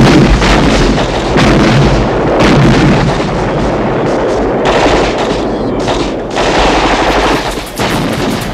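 Film battle sound effects: continuous rapid gunfire and machine-gun fire, with a heavy explosion at the very start and more blasts through it.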